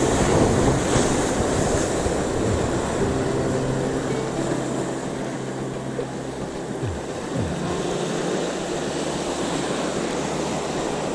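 Ocean surf washing against the rocks with wind on the microphone, loudest in the first couple of seconds. Faint low sustained tones run underneath.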